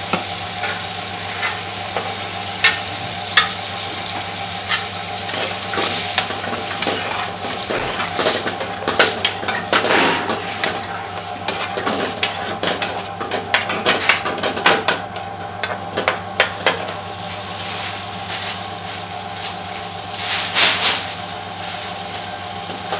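Curry sauce sizzling and bubbling in a metal frying pan on a gas hob, with a metal spoon clinking and scraping against the pan as it is stirred; the stirring is busiest through the middle and comes again briefly near the end. A steady hum runs underneath.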